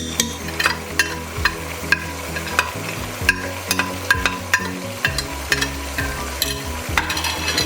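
Chicken frying with garlic-ginger paste in a pot, sizzling steadily, while a spoon stirs it and clicks against the pot about twice a second.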